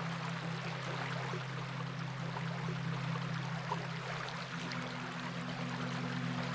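Flowing stream water: a steady rush with small splashes and trickles, over a low steady hum.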